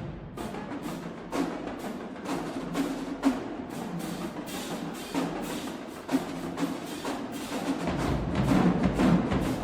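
Marching band drumline playing a percussion feature: quick, dense snare and tenor drum strokes, with heavier bass drum hits coming in about eight seconds in.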